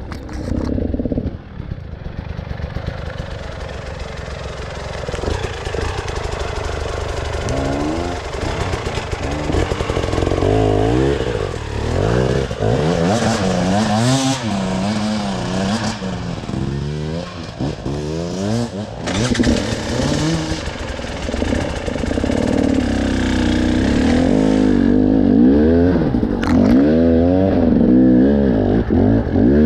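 Motorcycle engine revving up and down repeatedly as it is ridden, with a low rumble underneath.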